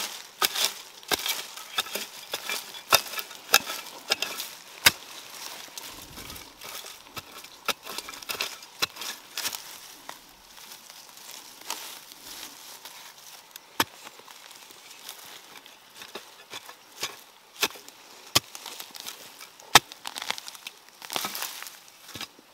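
Irregular rustling and crackling with many sharp snaps, as wild mushrooms are picked and pulled from the ground among dry plant litter.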